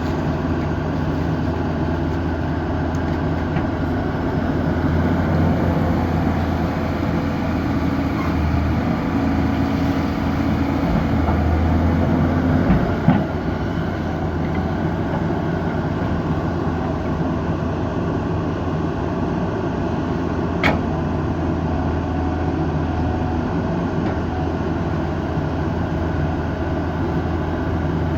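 Excavator's diesel engine running steadily, with a short knock about halfway through and a sharp click later.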